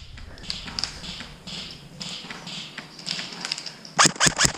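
Airsoft electric gun firing a quick burst of about four shots near the end, after a stretch of faint rustling.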